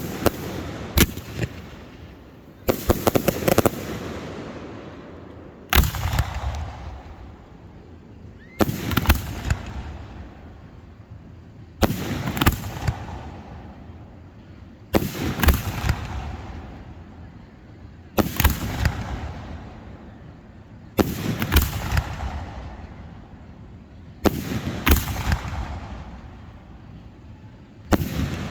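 Fireworks bursting overhead about every three seconds. Each is a sharp bang followed by a rumbling echo that fades over a second or two.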